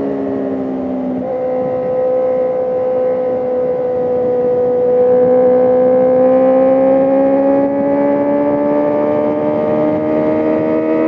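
Sport motorcycle engine under way, heard from on the bike. Its note changes abruptly about a second in, then climbs slowly and steadily in pitch as the bike accelerates.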